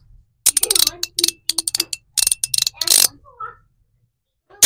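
Rebound Ultim mechanical slider fidget being slid and snapped in the hand: quick runs of crisp clicks with a slight metallic ring for the first few seconds, then a pause and one sharp snap near the end.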